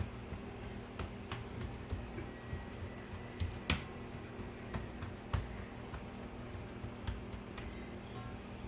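Scattered light taps and clicks, about one or two a second, of hands pressing and spreading buttery dough in a metal baking tray, over a faint steady low hum.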